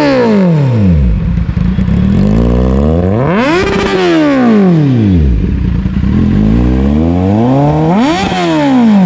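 Kawasaki Z800's inline-four engine, breathing through a single exhaust, being revved while standing. The falling tail of one rev is followed by two more revs, each climbing sharply in pitch and dropping back to idle, about four and a half seconds apart.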